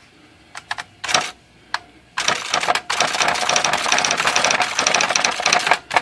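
IBM Wheelwriter 6 electronic typewriter typing and printing: first a few separate clicks and strikes, then from about two seconds in a rapid, continuous clatter of the print hammer striking the daisy print wheel. The rebuilt print hammer solenoid plunger is striking and printing again.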